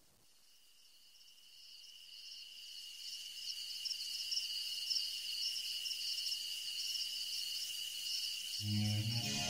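Insects chirping: a steady high trill that fades in from silence and holds, pulsing slightly. Near the end, music with low notes comes in underneath.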